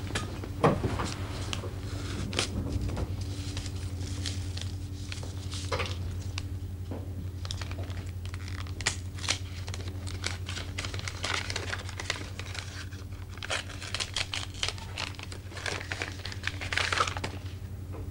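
Gift wrapping paper being crinkled and torn open, in scattered bursts of rustling and small crackles, over a steady low hum.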